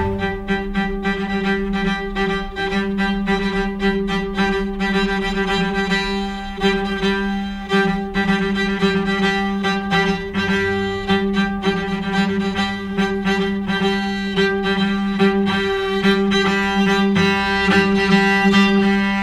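Instrumental background music: bowed strings over a held low drone, with a quick, steady plucked or struck pulse.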